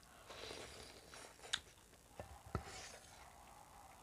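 Faint eating sounds: mouthfuls of soupy potato curry taken from spoons and chewed, with a few light clicks and taps of spoons against steel bowls.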